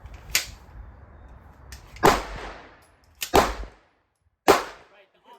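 Handgun shots fired one at a time, four in all about a second or so apart, the first fainter and the last three loud, each with a short echoing tail.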